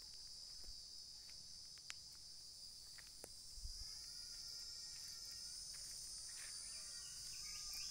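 A steady high-pitched chorus of insects, continuous and faint, with a few soft clicks.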